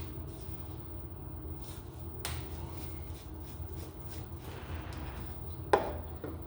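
A few light clicks and one sharp knock about three-quarters of the way in, over a steady low hum.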